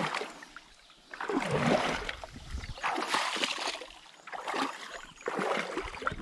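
River water splashing in several short, irregular bursts as a hand puts a caught smallmouth bass back into the shallows beside a rock.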